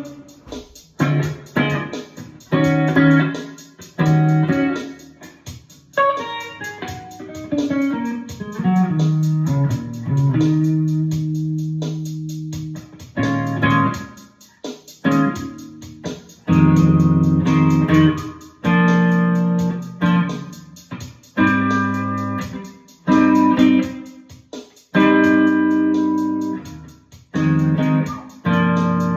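PRS SE guitar tuned a half step down, playing a solo instrumental walking-bass blues in E: plucked bass-line notes and chords that strike and die away. Partway through, a sliding run down leads into a note held for a few seconds.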